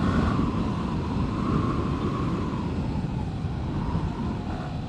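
Motorcycle riding noise picked up by a helmet-mounted action-camera microphone with the visor open: a steady rush of wind over the mic together with the engine and road drone.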